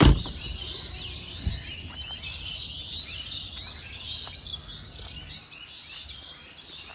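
Many small birds chirping without a break. Right at the start a Mercedes C-Class coupe's door shuts with a loud thud, and a softer thump follows about a second and a half later.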